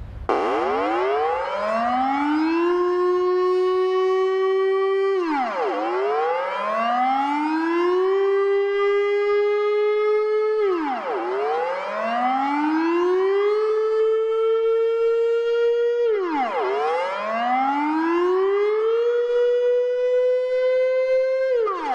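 Civil defence warning siren sounding in repeated cycles. Each cycle climbs over about two seconds, holds level for a few seconds, then drops sharply, once every five and a half seconds or so. The tone is buzzy and kazoo-like.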